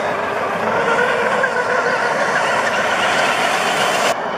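Radio-controlled racing hydroplane running flat out across the water, a steady, loud engine note with wavering pitch over spray noise. The sound changes abruptly near the end, as its high hiss drops away.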